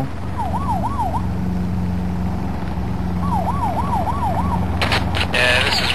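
Robinson R22 helicopter's steady engine and rotor drone, with a siren yelping in two short runs of quick rising-and-falling wails, the first about half a second in and a longer one about three seconds in. A few sharp clicks and a burst of hiss come near the end.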